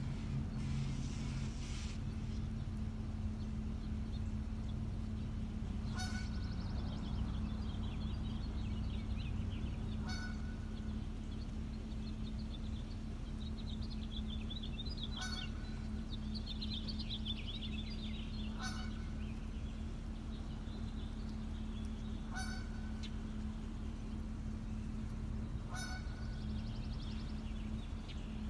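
Canada geese giving about six short honks, a few seconds apart, over scattered high chirping and a steady low hum.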